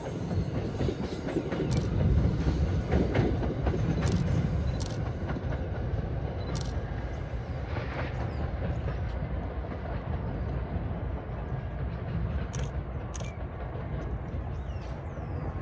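A train rolling past on the rails: a low, heavy rumble with scattered sharp clicks from the wheels over the track, slowly fading toward the end.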